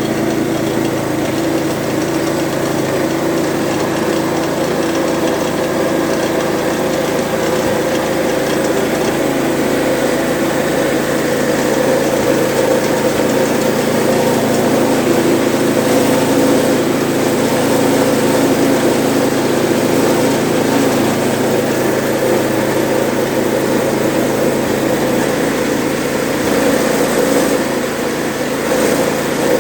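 Troy-Bilt snowblower engine running steadily.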